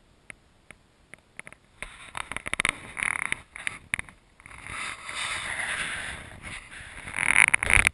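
Close, irregular rustling and handling noise against the microphone: a few light clicks at first, then scratchy bursts with a steadier hiss between them, loudest near the end.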